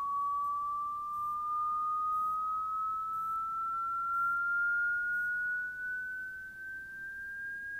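Audio test sweep played through a loudspeaker: a single pure sine tone gliding slowly and steadily upward in pitch.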